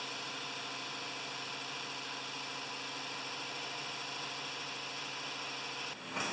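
Steady mechanical hum of a running motor at a constant pitch, changing character about six seconds in.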